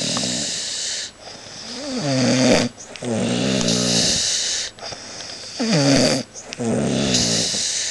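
A sleeping man snoring: a short pitched snore alternates with a longer hissing breath, in a steady cycle that repeats about every three and a half seconds.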